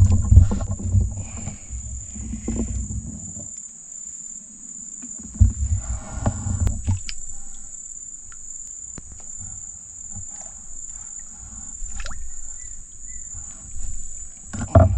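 Insects droning at one steady high pitch throughout. Louder bursts of low rumble come over it in the first few seconds and again around six seconds in, with a few sharp clicks.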